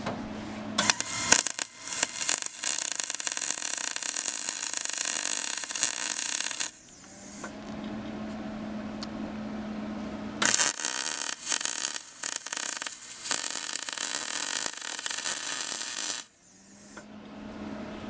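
Electric arc welding: two runs of about six seconds each of dense, crackling sizzle that start and stop abruptly. A steady low hum fills the gaps between the runs.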